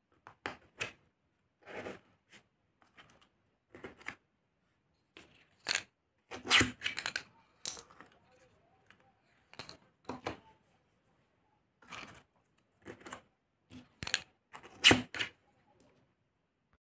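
Small plastic shotgun shell parts (wads and a shell hull) being handled and fitted together on a cardboard sheet: irregular clicks, scrapes and rustles, a dozen or so short bursts with pauses between.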